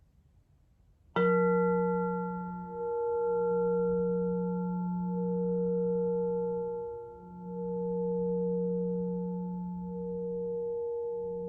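Alchemical crystal singing bowl struck once about a second in, then ringing on with a low tone and several higher ones that waver in slow waves as they sustain.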